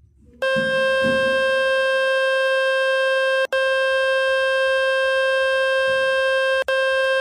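A steady, loud, buzzy electronic tone from a speaker-cleaning web tool, played to shake dust and water out of a phone speaker. It starts about half a second in and cuts out for an instant twice.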